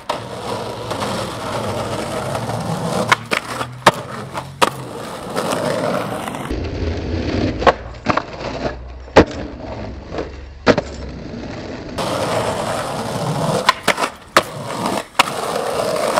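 Skateboard wheels rolling on rough pavement, broken by about nine sharp clacks of the board popping and landing during tricks.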